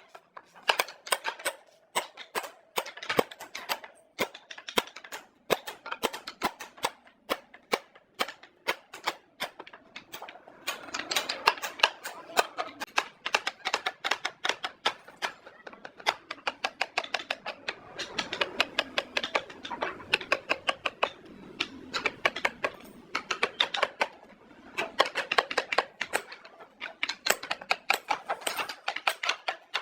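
Rapid, irregular series of sharp taps and clicks, several a second, coming in bursts that swell and fade.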